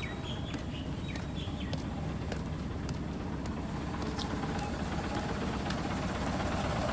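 Truck prime mover's diesel engine idling steadily, growing slightly louder, with faint footsteps on concrete.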